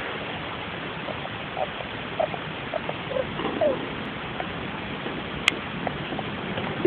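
Russian dwarf (winter white) hamster squeaking and chirping in its sleep: a dozen or so short, small squeaks, some gliding up or down in pitch, scattered over a steady hiss. A single sharp click about five and a half seconds in.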